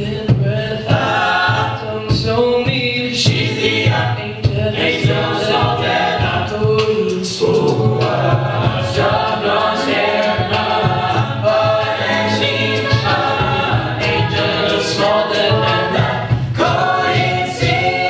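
An a cappella group singing: a solo voice over a backing choir, with vocal percussion keeping the beat.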